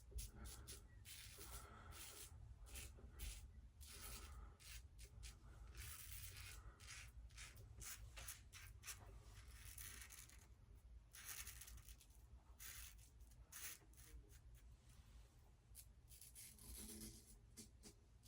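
Ikon X3 slant double-edge safety razor scraping through lathered neck whiskers in a quick series of short, faint strokes.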